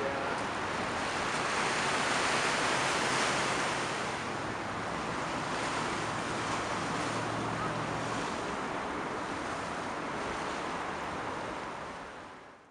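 Steady rush of waves and wind noise on the microphone, with a faint low hum through the middle few seconds; the sound fades out near the end.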